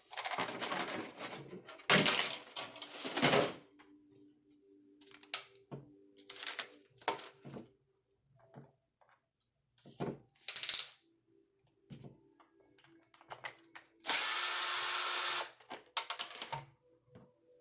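Power drill/driver running in short bursts between handling noises, with one loud steady run of about a second and a half near the end.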